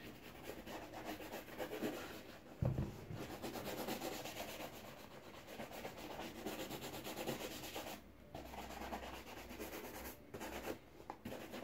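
A sock-wrapped shoe brush rubbed back and forth over a black leather shoe, buffing the polish to a shine, with brief pauses between runs of strokes. A dull knock sounds once, between two and three seconds in.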